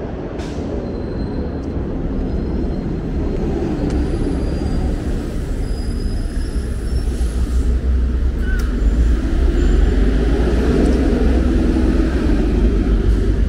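Street traffic noise: a steady low rumble of buses and cars on the road beside the sidewalk, slowly growing louder.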